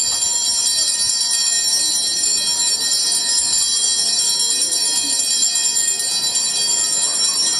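Small hand-rung altar bells jingling continuously as the monstrance is raised in the Benediction blessing, with faint voices beneath.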